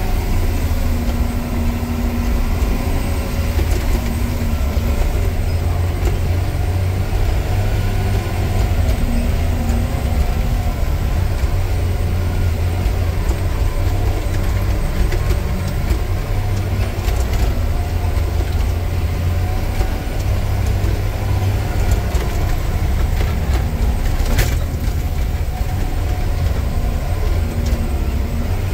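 Articulated rock truck's diesel engine running steadily while driving, a constant low drone heard from inside the cab. One sharp click sounds late on.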